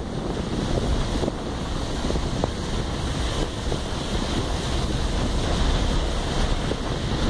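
Wind buffeting the microphone of a camera travelling along a road: a steady rushing noise, heaviest in the low end.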